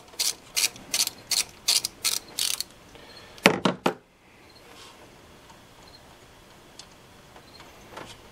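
Hand ratchet clicking in quick, even strokes, about three a second, as it backs a water pump pulley bolt out of a small-block V8. About a second later come two sharp knocks.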